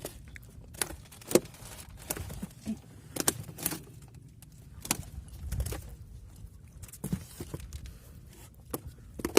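Scattered sharp clicks and knocks, about a dozen at irregular times, over a low rumble: handling sounds of fishing gear and catch in a small fishing boat.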